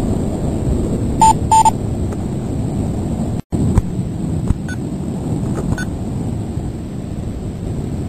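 Wind buffeting the microphone of a high-altitude balloon's onboard camera in flight, a steady rumble. About a second in come two short beeps, and just after three seconds the sound drops out for an instant.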